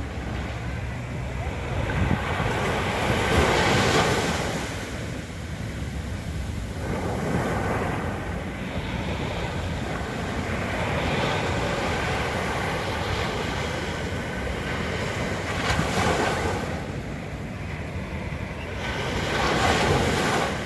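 Sea waves breaking on a beach, the surf swelling and fading every few seconds, with wind rumbling on the microphone.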